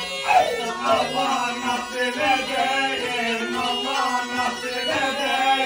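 Black Sea horon folk music: men singing a chant-like melody over a steady droning note.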